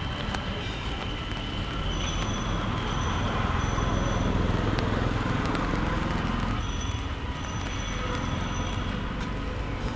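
Rainy city street traffic: a steady wash of vehicle noise and rain, with a low rumble underneath. A thin high tone like a horn is held over the first two seconds, and short high tones recur later.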